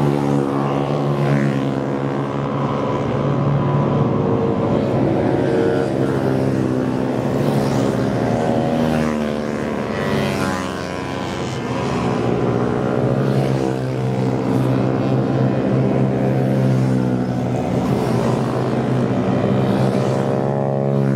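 Several Honda Super Cub race bikes pass one after another, their small single-cylinder four-stroke engines running at high revs. The pitch rises and falls as each bike goes by.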